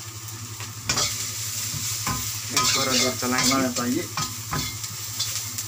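Shredded cabbage and vegetables sizzling in hot oil in a wok, stir-fried with a metal ladle that scrapes and clanks against the pan several times.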